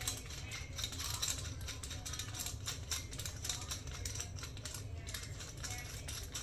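Irregular clicking and rattling of a clamp-on phone holder's parts being handled and fitted together.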